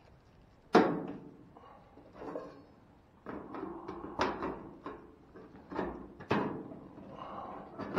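Several sharp knocks and clatter from dryer parts being handled and fitted back together during reassembly. The loudest knock comes about a second in, with more knocks in the second half.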